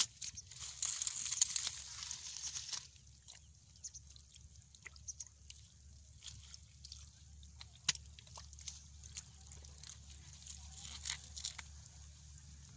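Wet mud and water-hyacinth plants being handled: dense crinkly rustling for about the first three seconds, then scattered small clicks, drips and squishes of wet mud.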